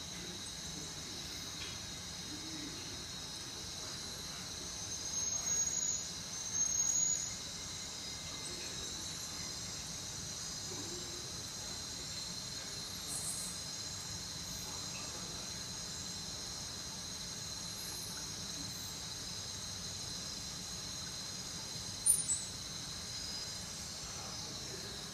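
Steady high-pitched chirring of insects. Two short, louder squeaky sounds come about five to seven seconds in, and a sharp click comes near the end.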